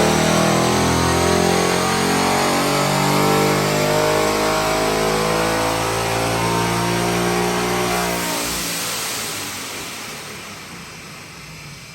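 Supercharged 5.0 V8 of a 2019 Mustang Bullitt with an ESS G3 kit, running loud at high revs. The engine sound cuts off about eight seconds in, leaving a rushing hiss that fades away.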